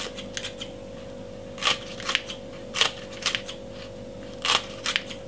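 Kitchen scissors snipping spring onion stalks: a series of short, crisp cuts at irregular intervals, several in quick pairs.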